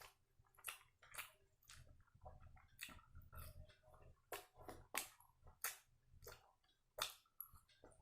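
A person chewing soft, sambar-soaked vada close to the microphone: wet mouth clicks and smacks, irregular, about one or two a second.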